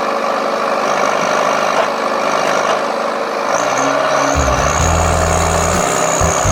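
Heavy truck running, a steady mix of engine and road noise with a thin high whine; about halfway in a deep low throb comes in.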